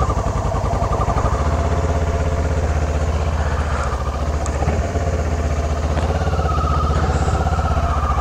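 Kawasaki Versys motorcycle engine running at a steady, even speed with a rapid regular pulse, no revving.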